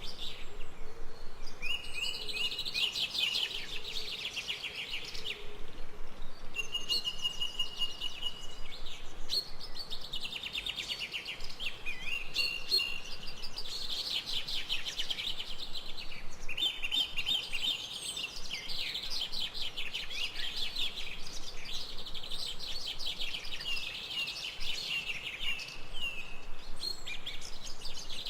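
Birds singing in fast, trilled chirping phrases, one after another with short pauses, with a few brief steady whistled notes among them, over a faint background hiss.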